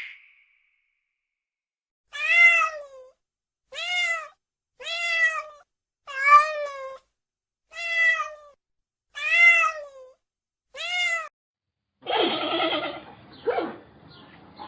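Domestic cat meowing, seven separate meows about a second or so apart, each rising and then falling in pitch. Near the end a different, rougher animal sound starts.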